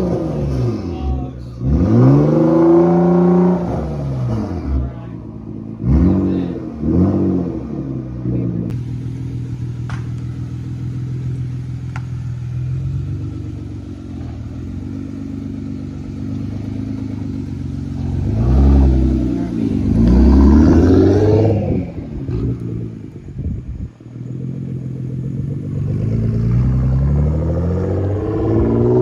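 Nissan R35 GT-R's twin-turbo V6 through a Fabworx 4-inch titanium straight-pipe exhaust, pulling hard with revs rising and dropping through several quick gear changes. It settles to a steady drone in the middle, then revs up hard again, drops sharply and climbs once more near the end.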